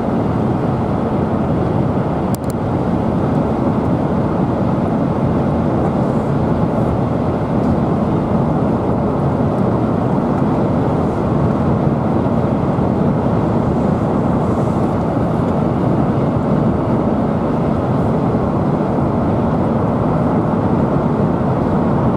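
Steady road and engine noise heard inside a moving car at highway speed, with one brief click about two seconds in.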